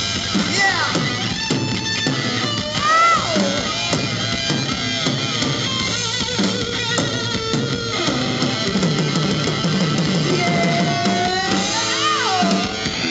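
Live rock band playing an instrumental passage: electric guitar lead with bending notes over electric bass and a drum kit.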